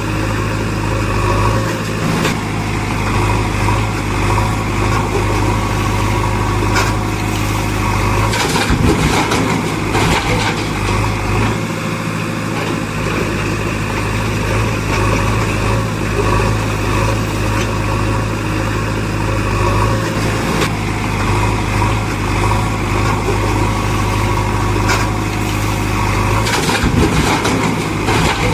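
Engine running steadily, a low even hum with a few brief knocks.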